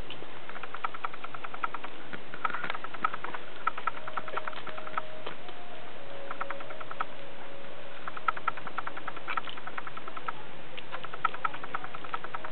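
Newborn puppies making short runs of rapid, high-pitched squeaks again and again, with a soft thin whine in the middle, over a steady hiss.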